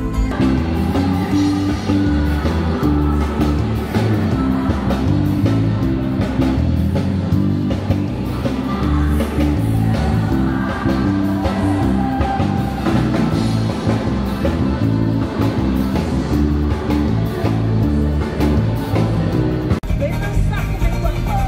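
Live pop band music with a woman singing over a steady beat; about 20 seconds in there is a short break and a different song begins.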